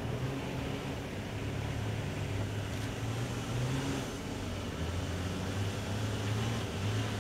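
Off-road 4x4's engine running under load as it climbs a rough dirt track, a steady low drone whose pitch shifts a few times.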